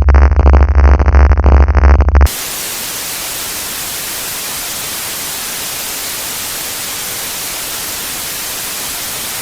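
A very loud, harsh, pulsing blare cuts off suddenly about two seconds in. It gives way to steady white-noise static, like a broadcast signal gone dead off the air.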